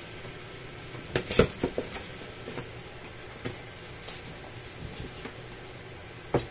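Soft knocks and scrapes of kittens batting at and shifting about in a cardboard box: a cluster of them about a second in, a few lighter ones after, and a sharp knock near the end, over a steady background hiss.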